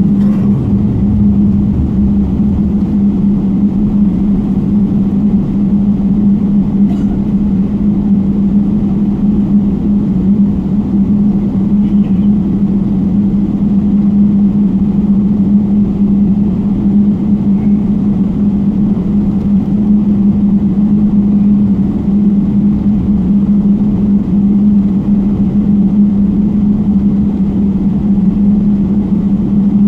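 Steady cabin drone inside a Boeing 777 taxiing on its engines, with a constant low hum running through it.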